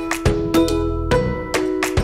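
Background music: plucked string instrument notes in a steady run of short, sharp-starting tones.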